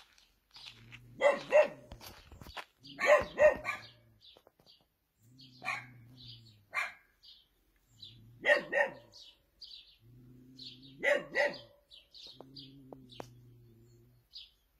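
Dogs barking, with repeated short barks often coming in quick pairs every two to three seconds, while small birds chirp.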